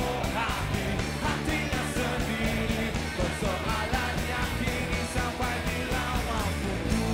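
Rock band playing live with electric guitars, bass and a steady drum beat, and a voice singing over it.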